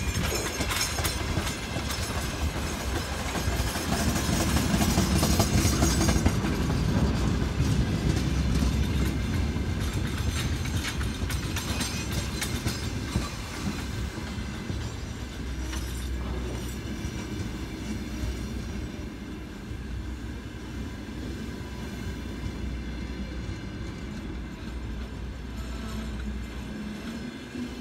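Freight train of container flatcars rolling past: a steady rumble of wheels on rail with clicks and clatter over the joints. It grows loudest a few seconds in and eases off after about halfway.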